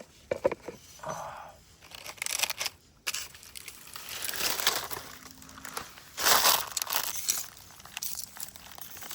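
Crinkling and rustling handling noise in several short bursts, the loudest about six seconds in.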